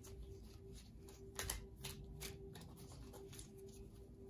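A deck of affirmation cards being shuffled by hand: a few soft card flicks and slaps scattered through, over a faint steady hum.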